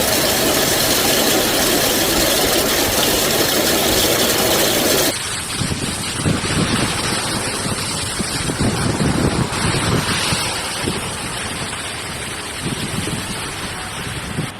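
Dense, steady hiss of a heavy storm downpour. About five seconds in, it cuts abruptly to a different recording: low, irregular gusts of wind buffet the microphone over a rushing noise.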